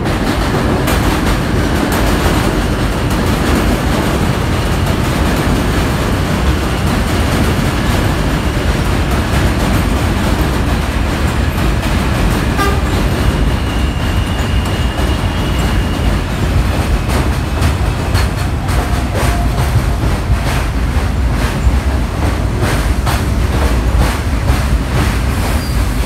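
A New York City subway G train running through the station on the elevated line without stopping: a loud, steady rumble of wheels and motors as it comes up and passes alongside, with wheel clicks over the rail joints growing more frequent in the second half.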